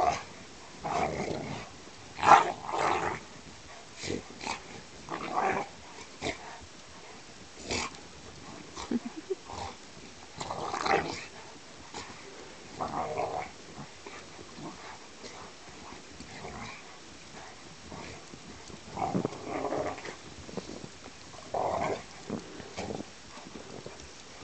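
Two dogs play-fighting, growling in short bursts scattered a second or two apart.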